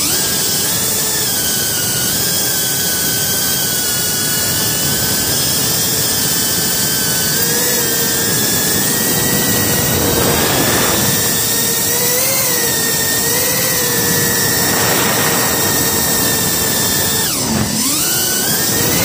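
FPV racing quadcopter's electric motors and propellers whining, heard from the drone's own on-board camera. The pitch wavers with the throttle. Near the end the whine dips sharply and then climbs back, a throttle chop through a roll.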